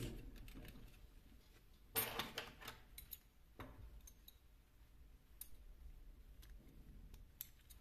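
Faint handling sounds at a sewing machine: a brief rustle of cloth about two seconds in, another shorter one a little later, and a few small scattered clicks.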